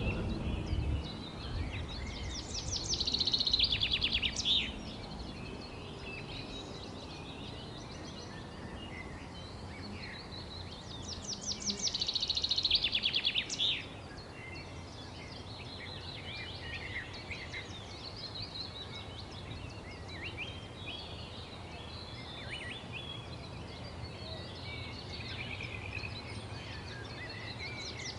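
Several songbirds chirping and singing. Loud trills of fast, evenly repeated notes come twice, a few seconds in and again about halfway, with scattered chirps between them, over a steady low rumble.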